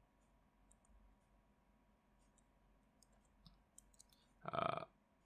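Faint, scattered light clicks of a stylus tapping and writing on a tablet screen, over quiet room tone. A brief voiced sound comes about four and a half seconds in.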